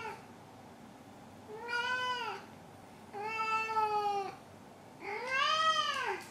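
Tabby-and-white domestic cat meowing: the end of one meow right at the start, then three long meows about a second apart. The last meow rises and falls in pitch and is the loudest.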